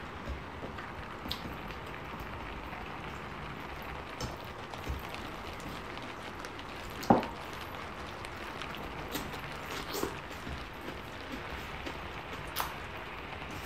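Steady hiss of heavy rain, with soft eating sounds of someone eating by hand: small clicks and smacks scattered through, and one sharp, much louder click about seven seconds in.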